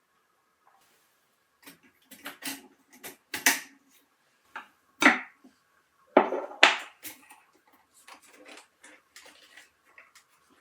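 Small hard objects clinking and knocking as they are handled and set down on a workbench, a dozen or so sharp irregular knocks with the loudest near the middle, over a faint steady hum.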